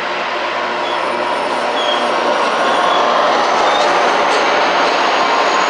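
Caltrain commuter train passing close by: a steady rush of steel wheels on rail as the bilevel coaches go past. It grows louder about two seconds in as the diesel locomotive at the rear end of the train goes by.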